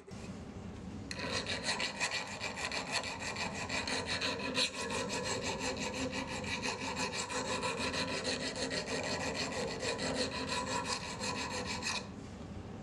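A hand file rasping in quick, even strokes along the edges of a 1084 high-carbon steel knife blank, chamfering them round. Near the end the strokes stop and a quieter, steady rushing noise follows.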